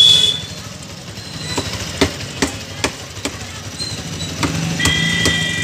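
Sharp chopping knocks, about two or three a second, from a blade cutting through a Mystus seenghala (dhighar) catfish on a wooden block, over a steady low engine hum.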